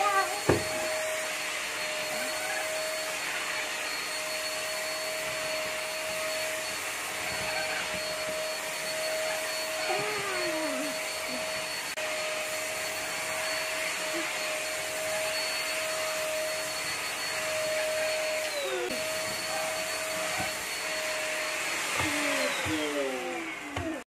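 A MAXHEALTH vacuum cleaner running steadily, its brush head on an extension pipe sucking over a mattress, with a constant motor hum and a high whine. Near the end the motor note sags briefly a couple of times.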